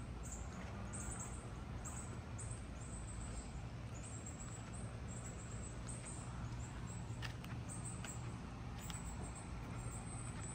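Outdoor ambience: faint, high chirping repeated every second or so over a steady low hum, with a couple of light clicks near the middle.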